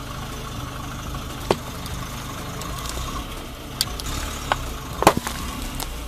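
A car engine idling as the tyre rolls slowly forward, with several sharp cracks and crunches as it crushes Mentos mints and a can of Coca-Cola, the loudest about five seconds in.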